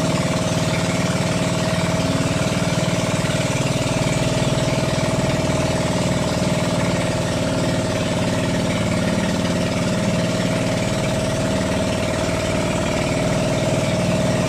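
Small boat's engine running steadily at an even speed as the boat motors along a calm channel, a constant drone that neither rises nor falls.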